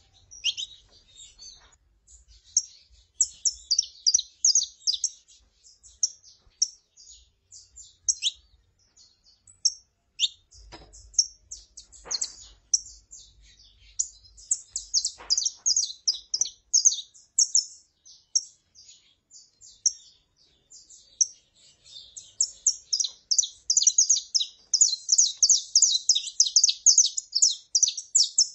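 Saffron finches, a female calling and a male singing, in a run of short high chirping notes that grows denser and louder about two-thirds of the way through.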